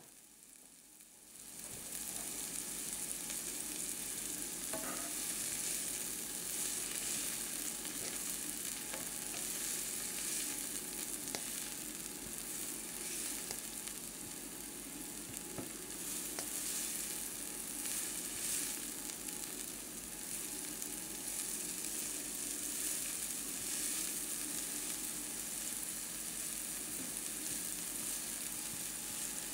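Chopped onions frying in olive oil in a frying pan: a steady sizzling hiss that comes in a couple of seconds in, with a few faint pops.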